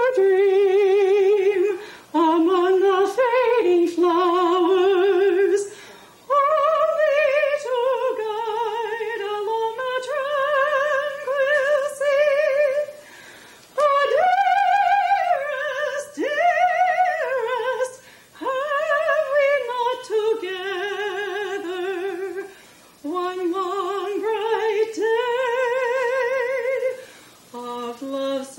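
A woman singing a slow song with no accompaniment, holding long notes with strong vibrato and pausing briefly between phrases.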